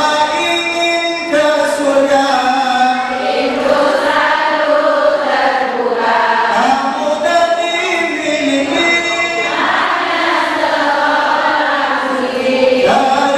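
Unaccompanied chant-like singing through a microphone, with long held notes sliding between pitches.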